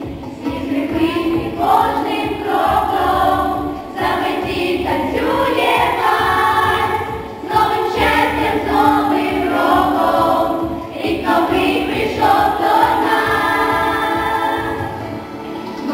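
A group of schoolgirls singing together as a small choir.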